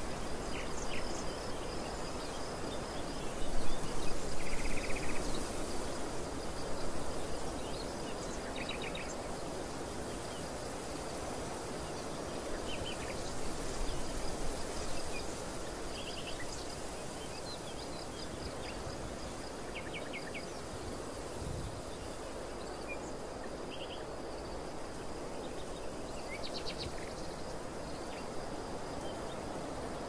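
Open-field outdoor ambience: a steady rush of wind that swells in gusts about four seconds in and again around fourteen seconds. Small birds give short chirping trills now and then over a thin, continuous high insect buzz.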